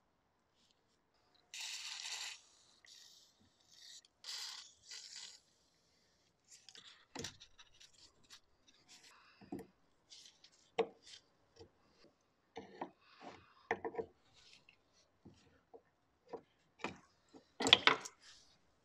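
Metal screwdriver scraping and prying at the plastic quick-connect fuel-line fittings on a car's fuel filter, with a series of short clicks and knocks. Near the end comes the loudest burst, as the line comes free and fuel splashes out.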